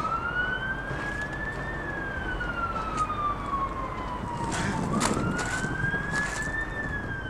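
An emergency vehicle siren wailing slowly: the pitch rises for about two seconds, falls for about three, then rises again. A few short knocks sound over it near the middle.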